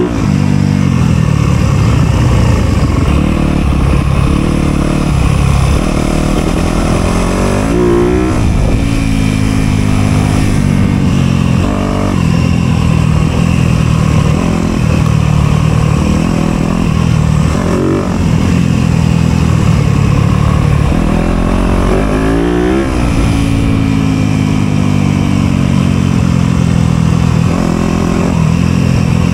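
Dirt bike engine under way on a trail ride, its pitch rising and falling with the throttle. Several sharp revs stand out, about eight seconds in, near twelve seconds and again around twenty-two seconds.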